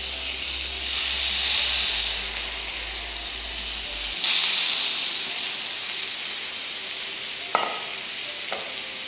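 Marinated chicken skewers sizzling on a hot ridged grill pan, the sizzle surging louder about four seconds in as another skewer is laid on. Two light clicks come near the end.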